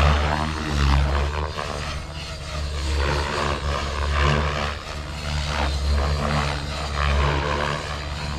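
Blade Fusion 550 electric RC helicopter flying aerobatics: its main rotor chops and whooshes, swelling and fading in loudness about every one to two seconds as it swings through flips and turns.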